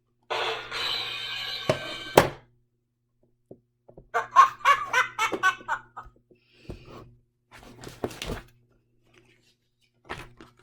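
Snatches of a tune, with a couple of sharp knocks about two seconds in.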